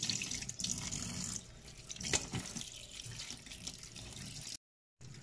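Tap water running into a stainless steel sink over a pile of small crabs being rinsed by hand, with a few sharp clicks and splashes as they are handled. The sound drops out completely for a moment near the end.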